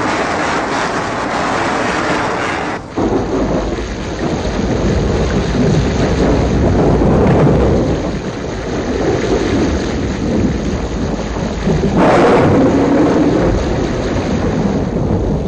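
Loud thunder rumbling over a steady rain-like hiss. The sound changes abruptly about three seconds in, growing heavier in the low rumble, and swells again around twelve seconds in.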